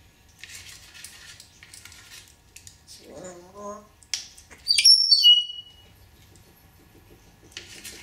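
African grey parrot vocalising: short rasping noises, a brief low voice-like mumble, then a loud whistle of several notes that fall in pitch in steps, about five seconds in.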